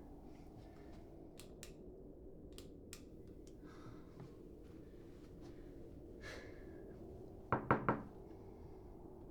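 Three quick knocks on a door near the end, after a few faint clicks over quiet room tone.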